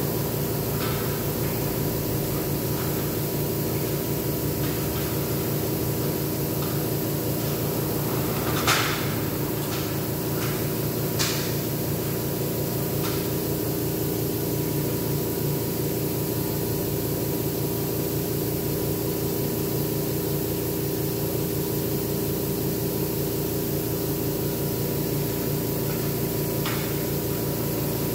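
Air compressor feeding an airbrush, running steadily with a constant hum and hiss. A couple of sharp clicks sound about 9 and 11 seconds in.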